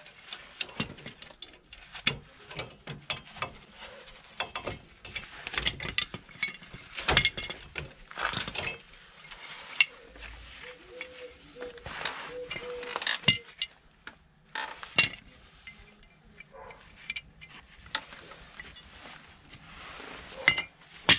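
Irregular metallic clinks, scrapes and knocks of steel drum brake shoes and their hardware being pulled off the backing plate and handled, on the rear brakes of a Ford Transit MK6. The clatter is busiest a little past the middle.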